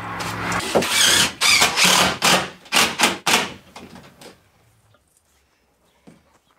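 A saw cutting a floor board to length: a run of rough strokes, about three a second, that stops about four and a half seconds in.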